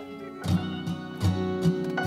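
Background instrumental music led by plucked guitar, with a steady pulse of low notes starting about half a second in.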